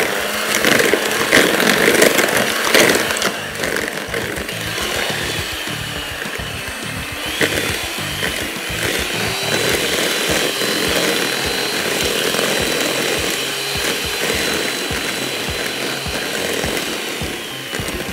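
Electric hand mixer running, its beaters churning cream cheese and sugar in a bowl.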